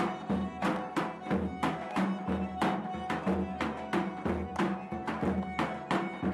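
Traditional folk wedding music: a large double-headed drum beats a steady rhythm of about three strokes a second under a sustained reed-pipe melody.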